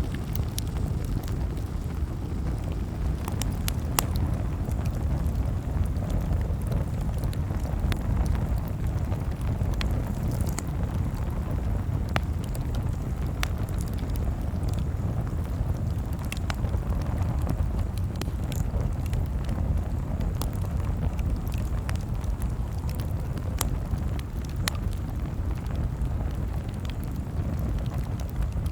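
Campfire crackling: irregular sharp pops and snaps, about one every second or two, over a steady low rumble.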